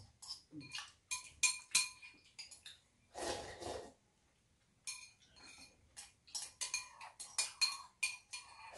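Metal spoon and chopsticks clinking against ceramic bowls while ramen is eaten: a scattering of short, irregular clinks, each with a brief ring.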